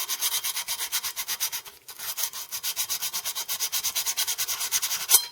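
Abrasive being scrubbed back and forth on bare copper to polish a spot clean for soldering: fast, even rasping strokes, about eight a second, with a short break about two seconds in.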